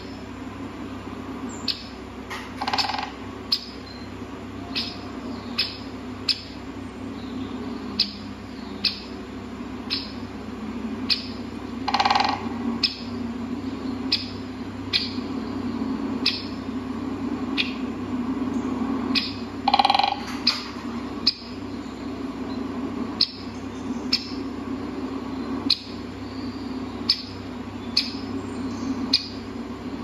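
Birds calling: short high chirps about once a second, with three louder harsh calls spread through, over a steady low hum.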